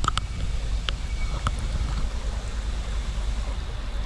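Steady low rumble of wind on the microphone over the wash of a small stream, with a couple of faint ticks.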